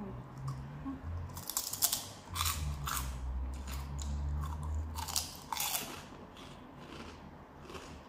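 Crunching and chewing close to a clip-on microphone as a crispy fried piece is bitten and chewed: a run of sharp, crisp crunches in the middle seconds, the loudest about two seconds in, then quieter chewing near the end.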